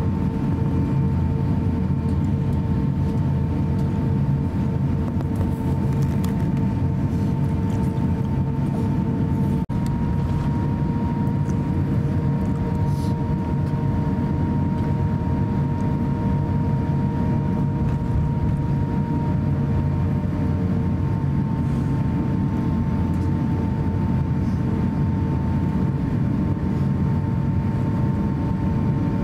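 Cabin noise of an Airbus A350-900 taxiing, with its Rolls-Royce Trent XWB engines near idle: a steady low rumble with a faint steady whine, heard from a window seat. A brief click and dropout about ten seconds in.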